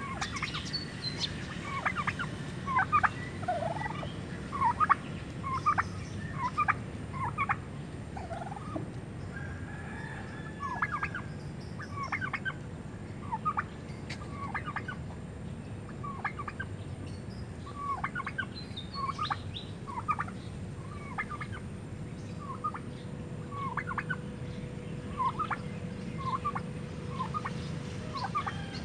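Short, sharp bird calls repeated irregularly, often two or three close together, over a steady low background hum.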